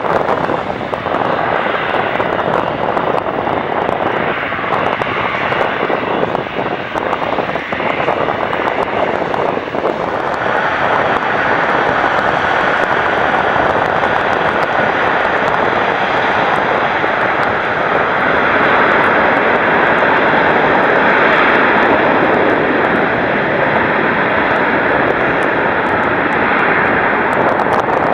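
Airliner's engines at takeoff power: a steady rushing roar that grows louder about ten seconds in and holds, with a faint high whine, wind buffeting the microphone early on.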